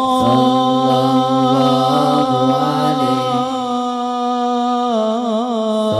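Amplified voices of a sholawat group singing long, drawn-out held notes through microphones, with a wavering vocal ornament about five seconds in.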